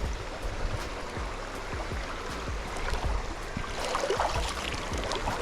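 River water rushing, the stream running high and fast after heavy rain, with low bumps and knocks along the way.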